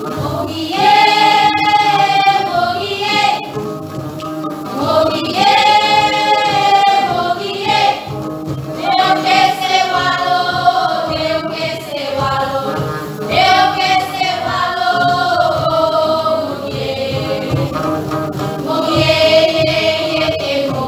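Women's choir singing in long, sustained phrases, one phrase following another every four to five seconds.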